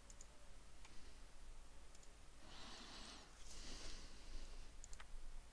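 Faint, sparse computer mouse clicks over quiet room hiss, with two soft hissing rushes of noise about halfway through.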